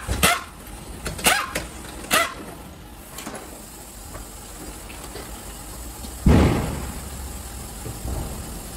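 Pneumatic impact wrench firing in four short bursts in the first two seconds or so, spinning off a car wheel's lug nuts, then a single heavy thump about six seconds in as the wheel comes off the hub.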